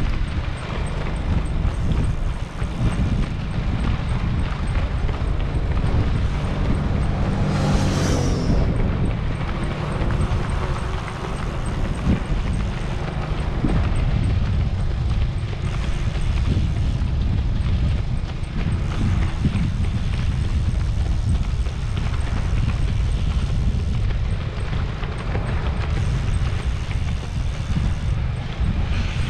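Footfalls of a pack of marathon runners slapping on the road in a quick patter, over a steady low rumble of wind or vehicle noise. About eight seconds in, a brief sound sweeps down in pitch.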